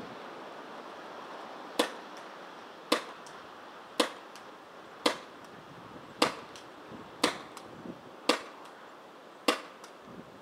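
Tiberius T9 CO2 paintball pistol firing eight sharp shots at an even pace of about one a second. Each shot is followed by a much fainter tick.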